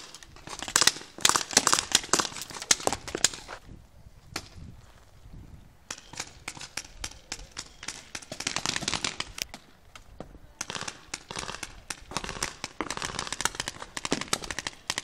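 Paintball markers firing in rapid strings of sharp pops, in three bursts with short lulls around four to six seconds in and near ten seconds.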